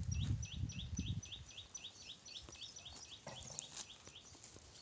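A small bird chirping a fast, even series of short high notes, about three or four a second, which stops about three and a half seconds in. A low rumble sits under the first second.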